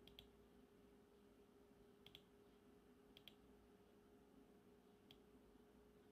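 Faint computer mouse clicks, some single and some in quick pairs, over a faint steady hum.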